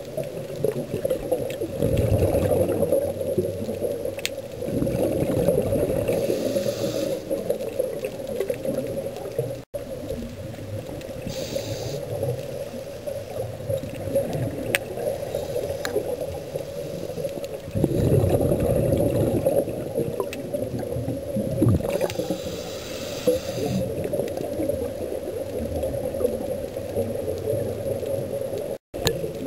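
Scuba regulator breathing heard underwater: long gurgling rushes of exhaled bubbles alternating with hissing inhalations, over a steady hum. The sound cuts out briefly twice.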